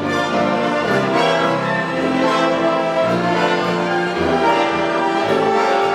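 Orchestra playing, strings and brass together in full, sustained chords.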